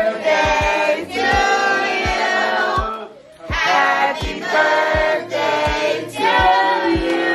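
Music: a song with sung vocals over a steady drum beat, with a short break in the singing about three seconds in.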